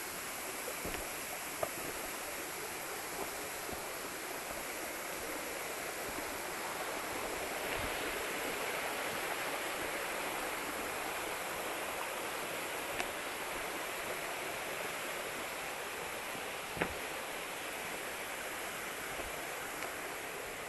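Waterfall: falling water making a steady rushing hiss that swells a little about a third of the way in. A few short sharp clicks break through, the loudest near the end.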